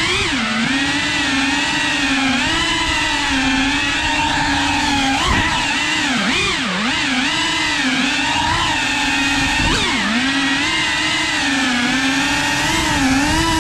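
Cinewhoop FPV drone's motors and ducted propellers whining, the pitch rising and falling constantly with the throttle, with sharp dips and surges as it manoeuvres.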